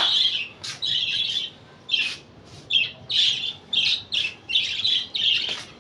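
Pet parrots chirping and squawking in a run of short, high-pitched calls, about two a second, with a brief lull partway through.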